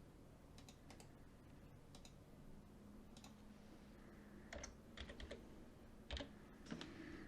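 Faint computer keyboard typing: scattered key clicks over quiet room tone, coming in quicker clusters about halfway through and near the end.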